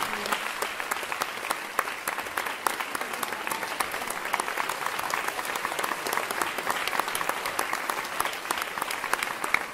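Audience applauding steadily, a dense clatter of clapping with single sharp claps close by standing out.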